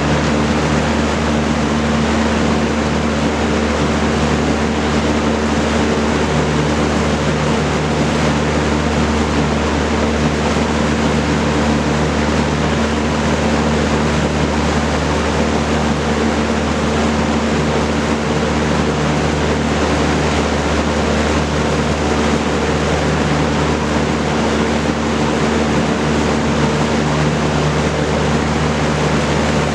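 Vintage Kenmore Roll-A-Matic 20-inch reversible box fan running steadily: a loud, even rush of air from its four-blade propeller over a steady low motor hum.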